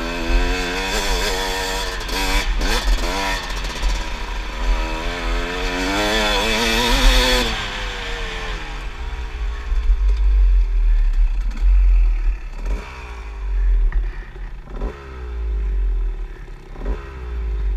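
Kawasaki dirt bike engine heard from the rider's helmet, revving up and down as the throttle is worked, then easing to a lower, quieter run about halfway through. Several sharp knocks follow from the bike going over bumps, and wind buffets the microphone.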